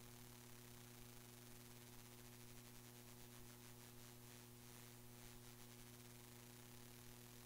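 Near silence: a faint steady electrical hum and hiss, with no meeting sound, because the recording's audio feed has dropped out.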